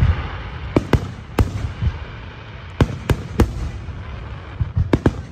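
Aerial fireworks shells bursting overhead: sharp bangs in quick groups of two or three, about eight in all, over a low rolling rumble of echoing reports.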